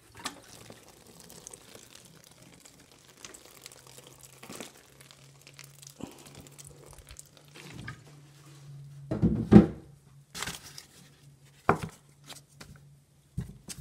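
Gloved hand rustling and crinkling damp shredded cardboard and newspaper bedding in a plastic worm bin, soft and scattered at first, with a louder spell of crumpling about nine seconds in and a sharp click shortly after. A faint steady low hum runs underneath.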